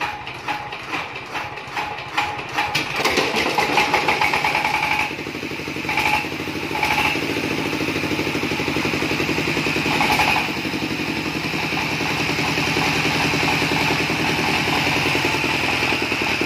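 Yamamax S1125 single-cylinder diesel engine being hand-cranked, its beats speeding up until it catches about three seconds in, then running steadily with a few brief rises in speed.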